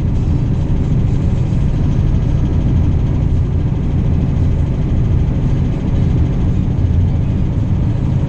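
Semi-truck's diesel engine running steadily at highway speed, heard from inside the cab, with a low, even drone and road noise.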